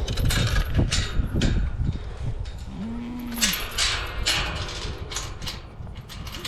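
A farm animal gives one short, low call about three seconds in. Around it, repeated knocks and rustling come from livestock crowding at their feed.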